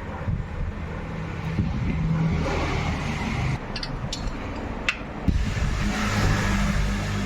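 An engine running, its pitch shifting up and down, with a few sharp metallic clicks a little past the middle.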